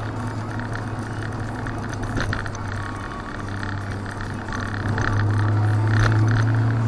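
Mazda MX-5's four-cylinder engine droning steadily at moderate revs, with tyre and road noise, heard from inside the cabin; it grows louder about five seconds in.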